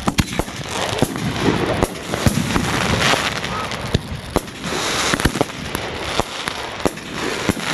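Miracle Fireworks 'Blue Angels' consumer fireworks cake firing: sharp shots and bursts at irregular intervals over a continuous crackling hiss.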